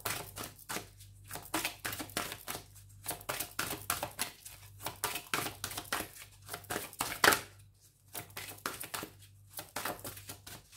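A deck of oracle cards being shuffled by hand: a run of quick, irregular card flicks and slides, with one sharper snap about seven seconds in. A faint steady low hum runs underneath.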